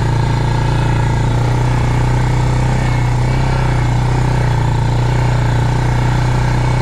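Quad bike engine running steadily, with a slight rise in pitch about a second in.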